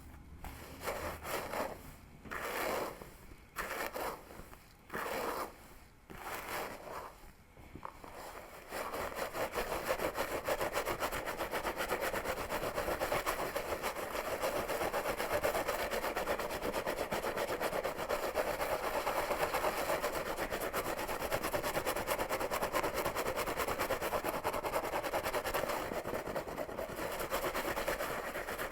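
Fingers scratching and rubbing through hair and scalp close to the microphone: a handful of separate strokes about a second apart, then from about nine seconds in a fast, continuous scratching.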